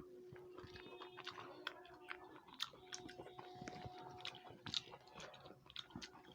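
Faint, close-up eating sounds: chewing with many small irregular wet clicks and lip smacks, over a faint steady hum.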